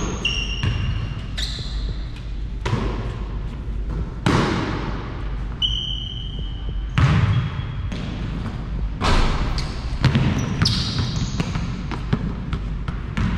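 Basketball bouncing on an indoor court every second or two at an uneven pace, with several short, high-pitched sneaker squeaks on the floor.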